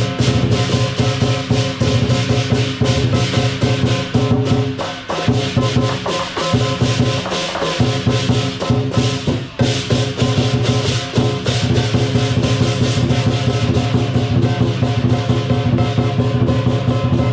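Lion dance music: a dense, rapid stream of drum and cymbal strikes over steady sustained ringing tones, loud throughout.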